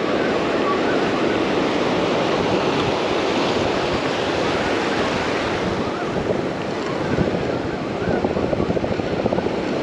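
Surf washing in steadily around the feet in shallow water, with wind buffeting the microphone, gustier near the end.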